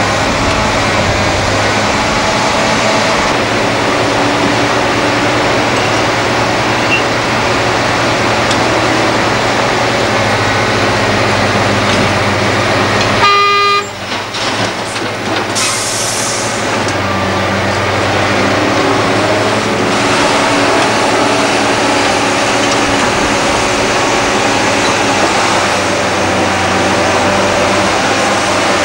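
Diesel engines of a Liebherr R962 hydraulic excavator and a dump truck running steadily under work as the excavator loads spoil. About halfway through the running breaks briefly for a short high beep, and a short hiss follows soon after.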